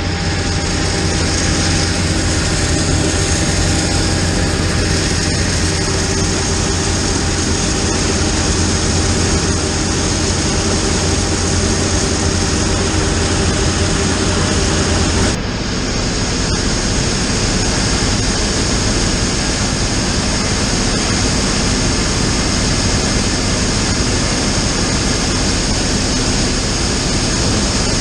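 Heavy diesel farm harvest machinery running loud and steady under working load. The sound shifts abruptly about halfway through.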